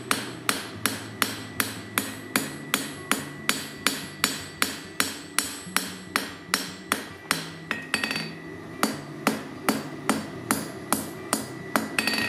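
Hand hammer striking a red-hot steel knife blank on an anvil in a steady rhythm of about two and a half blows a second, the anvil ringing under each blow. The hot blade's bevel is being hammered straight.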